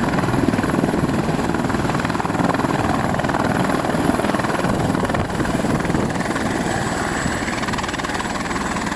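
Helicopter running nearby: a steady rush of rotor and turbine noise with a thin, high, steady whine on top.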